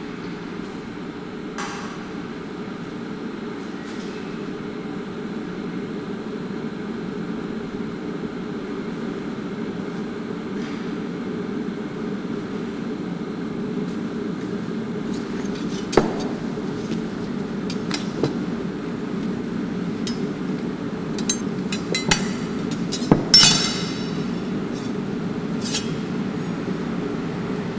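Steel kitchen knives clinking and knocking as they are handled, with several sharp metallic clinks in the second half and the loudest, a ringing one, near the end. A steady low hum runs underneath.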